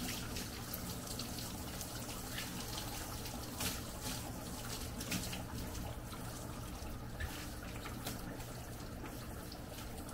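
Handheld shower head spraying water onto a wet Siberian husky in a dog-bath tub: a steady hiss of spray, with water splashing and dripping into the basin over a steady low hum.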